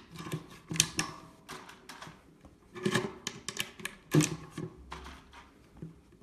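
9mm P.A.K. blank cartridges being pressed by hand into the GSG StG44 blank-firing rifle's magazine: irregular metallic clicks and rattles, with a few louder snaps as rounds seat, about a second or more apart. The magazine is stiff to load without its loading aid.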